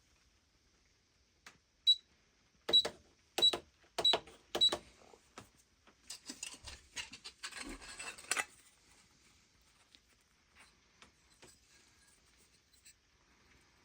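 Five sharp metallic taps with a short ringing tone, about half a second to a second apart, followed by a few seconds of rustling and scraping that ends in a click.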